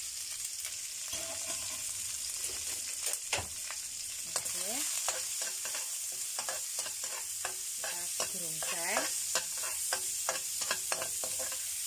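Sliced shallots, garlic and chillies sizzling in hot oil in a wok, with a spatula repeatedly scraping and tapping against the pan as they are stirred.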